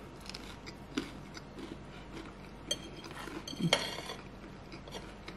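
A few light clinks of metal cutlery against crockery, the loudest one ringing briefly about four seconds in, over quiet room sound.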